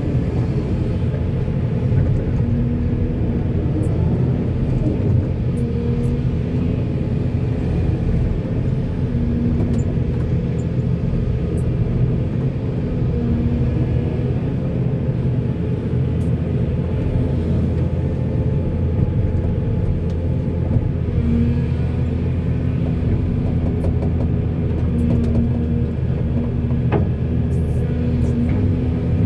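Diesel engine of a backhoe running steadily under working load, a continuous low rumble with a tone that shifts slightly in pitch now and then.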